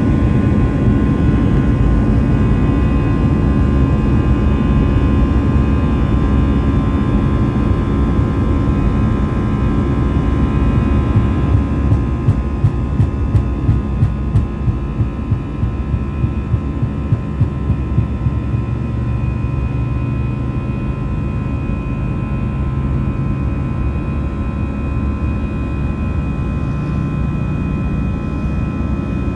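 Airliner's wing-mounted turbofan engines running at takeoff power, heard from inside the cabin during the takeoff roll: a steady rumble with a fan whine that grows stronger about two-thirds of the way through. Midway comes a run of regular thumps, about two a second, from the wheels rolling over the runway.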